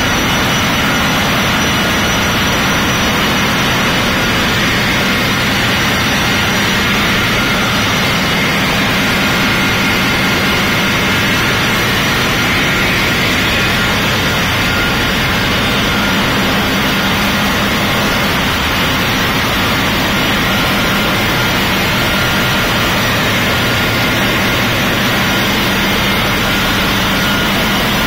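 Loud, steady hum of a container ship's engine room: running diesel engines and auxiliary machinery blending into one constant din, with a few faint whining tones over it.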